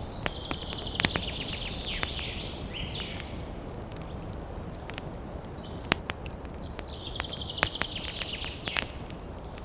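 Campfire crackling with scattered sharp pops over a low steady hiss, while a small bird gives a rapid high trill in the first few seconds and again near the end.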